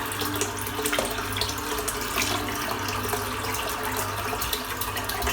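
Water running steadily from a tap into a sink that is filling.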